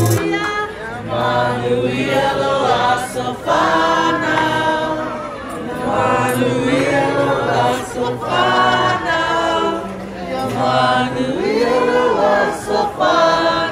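A group of people singing a birthday song together, unaccompanied, in held notes with short breaths between the lines.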